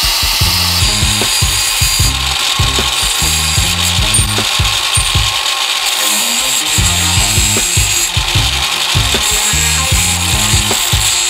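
Cordless angle grinder with a cutting disc cutting through thin steel rod, a steady high whine with grinding hiss. Background music with a low beat plays underneath.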